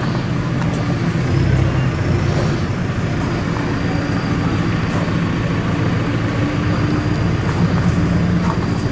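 An engine running steadily at a constant speed, a low even drone with no revving.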